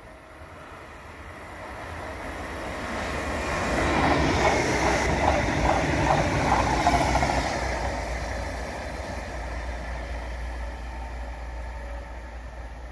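A Stadler Flirt 3 electric multiple unit passing: it approaches and grows louder, is loudest about four to seven seconds in with a rapid clatter of wheels over the rails, then fades away.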